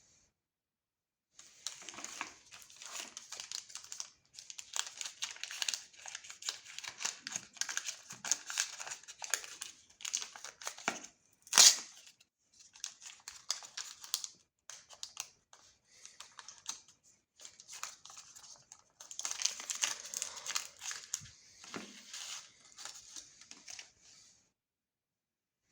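Candy wrappers crinkling and tearing as chocolates are unwrapped, in stretches of dense crackling with short pauses, and one sharp loud crack about halfway through.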